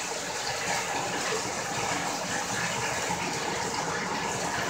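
Water running steadily from a bathtub tap into the tub as it fills.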